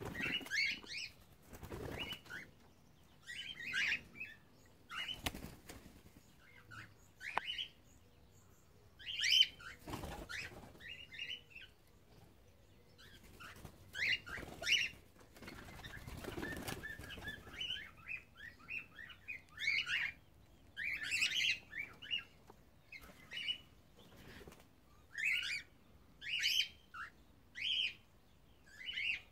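Cockatiels chirping in short calls every second or so, with wings flapping now and then.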